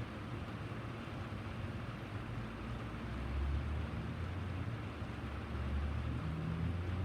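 Steady rain falling, an even hiss, with a low rumble underneath that swells about three seconds in and again near the end.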